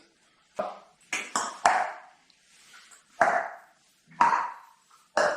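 A series of about seven sharp taps or knocks, each dying away quickly, spaced irregularly with quiet gaps between them, like hard objects being handled and set down.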